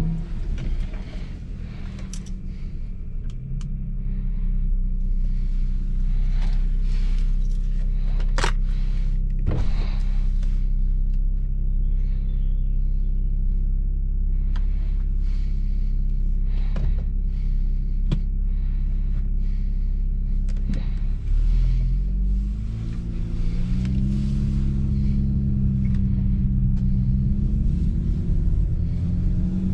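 2009 BMW 335i's 3.0-litre twin-turbo inline-six with a straight-piped exhaust, running at steady low revs while cruising, with a few sharp cracks. About 22 seconds in the revs change and the engine note climbs as the car accelerates.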